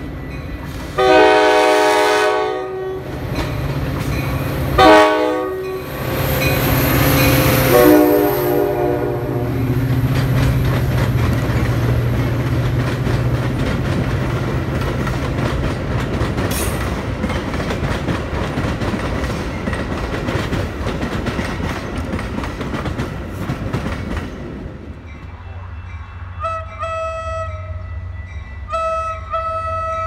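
A Metra diesel locomotive's air horn sounds three blasts, long, short, then long, followed by the rumble and clickety-clack of its bilevel commuter cars rolling past on the rails. About 25 seconds in the sound changes to a second approaching Metra train sounding two fainter horn blasts.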